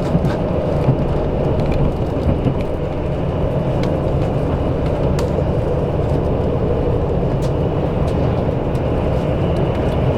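Interior running noise of a KiHa 85 series diesel railcar: a steady low rumble of engine and wheels on the rails, with scattered sharp clicks of the wheels passing over rail joints and points.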